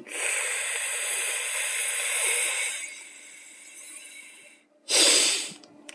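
A man breathes in long and audibly through the mouth, a hiss that is loudest for about three seconds and then fades out about four and a half seconds in. After a short pause comes a sharp exhale through the nose lasting under a second. This is the 'bear breath' of Cossack Spas breathing practice: a long mouth inhale followed by a forceful nasal exhale.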